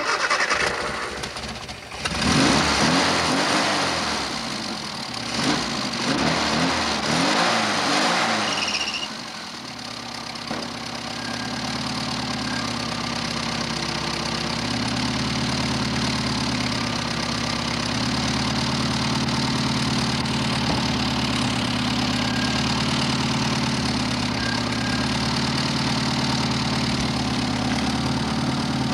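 A Mini's four-cylinder A-series engine is revved up and down for several seconds with its bonnet open. About ten seconds in it settles to a steady idle.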